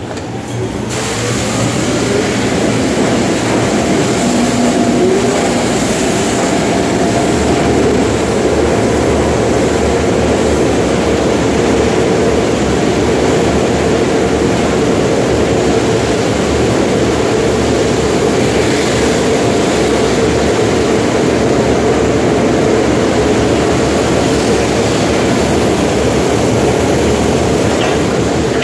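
High-pressure wash wand spraying water onto a pickup truck's side: a loud, steady hiss with a constant hum underneath, starting about a second in.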